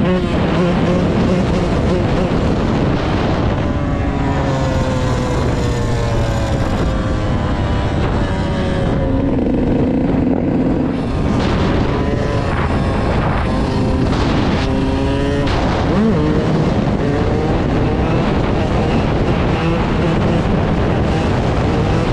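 Yamaha YZ125 two-stroke single-cylinder dirt bike engine, heard from the rider's seat, revving and shifting as it rides along the road. Its pitch climbs and breaks off again and again through the gears.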